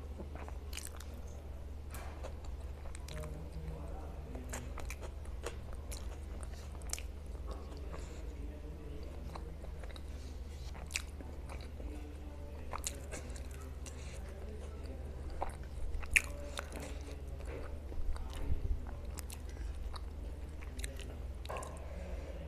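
Mouth sounds of someone eating pav bhaji, soft bread rolls dipped in spiced vegetable curry: chewing with scattered wet clicks, the sharpest about sixteen seconds in.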